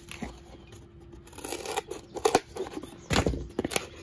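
Scissors cutting through corrugated cardboard in a string of short, sharp snips. Near the end comes louder handling noise as the cardboard sheet is bent by hand.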